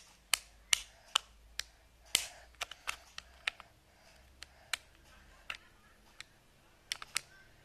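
Plastic parts of a take-apart toy fire truck clicking and knocking together as they are handled, in quick irregular taps.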